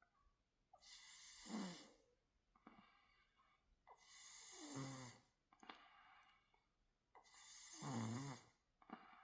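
A sleeping person snoring steadily: three snores about three seconds apart, each swelling to a low buzzing peak, with softer breathing between them.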